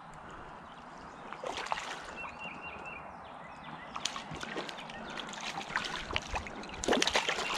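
Hooked trout splashing and thrashing at the creek's surface as it is played toward a landing net, with irregular sloshes and splashes over the stream's flow; the splashing grows louder and more frequent near the end.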